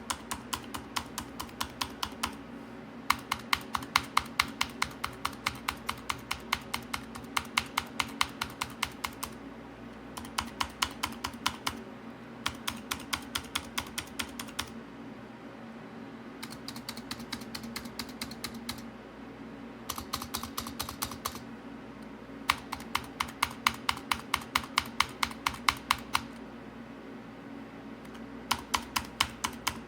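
Typing on a Razer Huntsman Mini keyboard with clicky optical switches: quick runs of sharp clicks, several a second, with short pauses between the runs.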